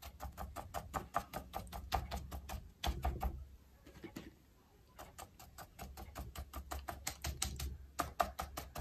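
Paintbrush dabbing paint onto drawing paper in quick taps, several a second, to make polka dots. The tapping stops for about a second just past the middle while the brush is reloaded with paint, then starts again.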